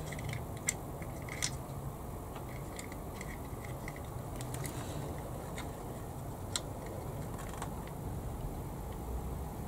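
A few light, sharp clicks of small plastic kit parts being handled as the tail wheel of a 1/32 scale P-51D model is worked into its mounting hole, over a steady low background hum.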